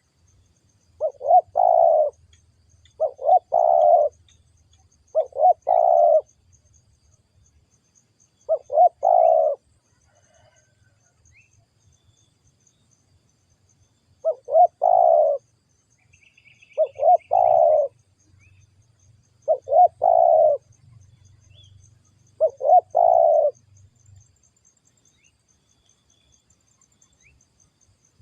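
Spotted dove cooing: eight short three-part coo phrases, each about a second long, in two groups of four with a pause between the groups.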